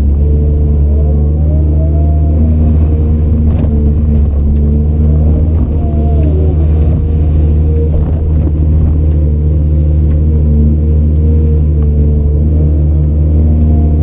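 Heavy diesel engine of earthmoving machinery running steadily under load, with a fainter whine that rises and falls in pitch a couple of times.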